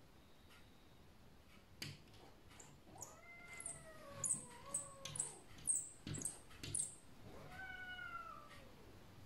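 Sphynx cat giving two long, drawn-out angry meows through the window glass, the first about three seconds in and sliding down in pitch, the second shorter near the end. Between them comes a run of sharp, scratchy clicks, the loudest sounds here, as the cat paws at the glass.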